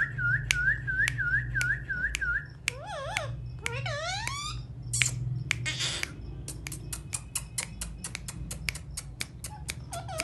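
Parrot whistling a quick run of repeated rising notes, about three a second, then two longer rising whistles and two short harsh squawks. After that comes a rapid string of sharp clicks, about eight a second.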